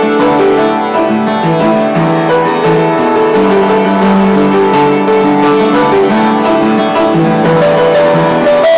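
Upright piano being played: a melody of held notes over chords.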